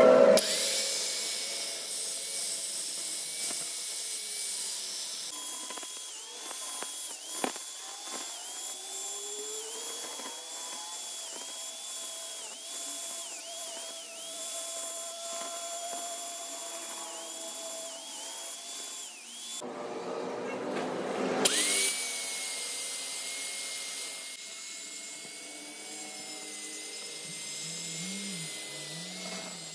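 Electric angle grinder with an abrasive disc grinding the hardened steel teeth of a spiral bevel differential pinion, its motor whine dipping briefly in pitch again and again as the disc bites into the teeth. After a short break a little past the middle, the grinder spins back up and runs steadily.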